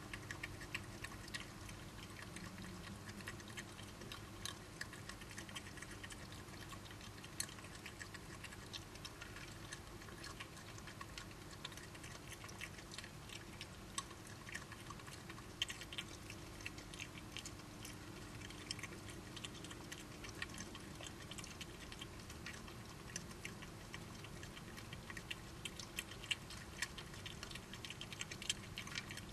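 Badgers chewing and crunching food: faint, irregular clicks and cracks, thicker around the middle and near the end, over a steady low hum.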